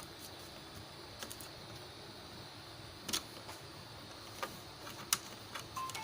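Scattered light clicks and taps, about five of them, the sharpest about three and five seconds in, over a steady low hiss.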